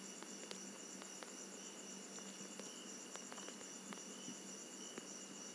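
Faint steady high-pitched chirring of insects, with a few soft clicks scattered through.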